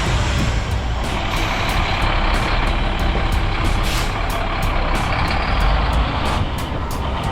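Heavy diesel truck engine running steadily.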